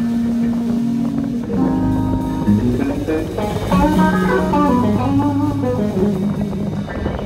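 Live band playing a guitar-led blues number, with bass and drums underneath. The lead line holds notes and, in the middle, plays a run of bent notes.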